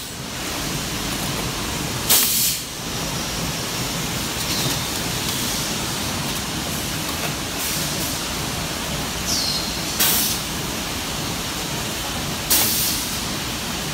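Short, sharp hisses of compressed air venting from a resistance welding machine's pneumatic clamp cylinder, three times, each fading quickly, over a steady hiss of background noise.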